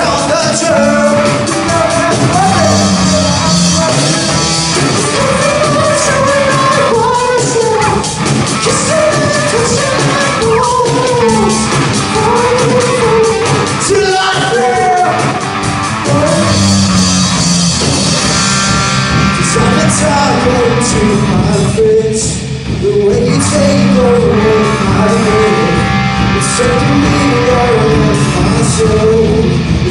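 Live rock band: a male lead singer with electric guitar, backed by a drum kit, played loud through a PA system.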